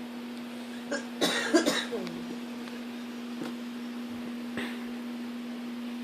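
A person coughing, a short cluster of coughs about a second in, over a steady low hum.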